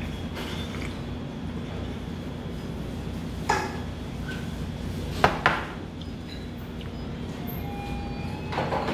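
Tableware knocking on a restaurant table: one sharp knock about three and a half seconds in and two more close together about five seconds in, over a steady low room hum. Near the end makgeolli starts pouring from a bottle into a small bowl.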